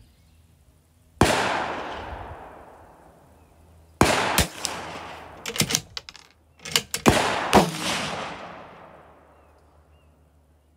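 Bergara B14R .22 LR bolt-action rifle firing SK Rifle Match rounds: sharp shots about a second in, about four seconds in, and again around seven and a half seconds in, each echoing away over a couple of seconds. Shorter sharp clicks and knocks come between the shots.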